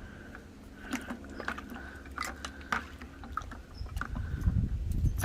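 Seatbelts being handled while they soak in vinegar and boiling water: scattered clicks and knocks of the webbing and metal latch parts against the container, with a low rumble of handling over the last second or so.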